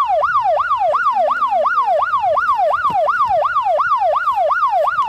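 Electronic siren in a fast yelp pattern, its pitch sweeping up and down about three times a second, steady and loud.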